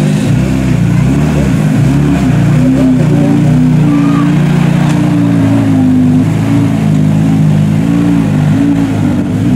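Skoda Fabia RS Rally2's turbocharged four-cylinder engine idling, its pitch wavering slightly up and down.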